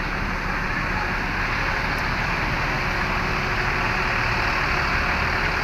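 Steady noise of a running vehicle engine, even throughout, with a faint constant hum.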